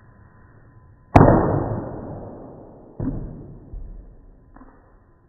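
A whole coconut striking brick pavers: one heavy thud that dies away slowly, then a second, softer thud about two seconds later and a couple of lighter knocks. The audio is dull and drawn out, as in slow-motion playback.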